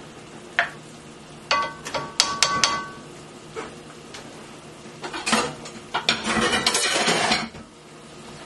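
Cookware being handled on a stovetop: scattered clinks and knocks, a few of them ringing like metal, about two seconds in, then a louder noisy stretch of rattling and scraping from about six to seven and a half seconds.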